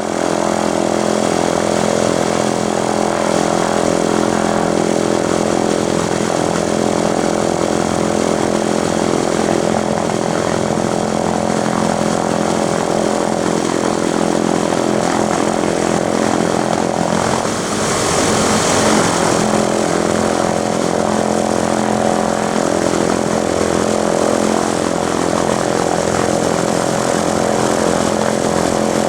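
Airbus (Eurocopter) AS355 Twin Squirrel twin-engine helicopter running steadily on arrival: main rotor and turbine engines with a steady hum of several tones and a hiss over it. About two-thirds of the way through the hiss briefly grows louder and brighter.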